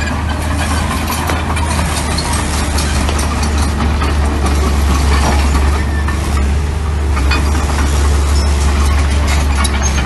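Mini bulldozer's diesel engine running steadily, with scattered short clanks and knocks over it.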